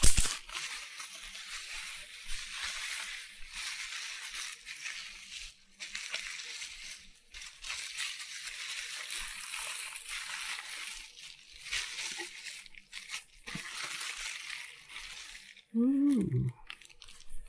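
Plastic bubble wrap crinkling and rustling as it is handled and unwrapped by hand, in irregular spells with short pauses. A brief vocal sound from the man, louder than the wrap, comes near the end.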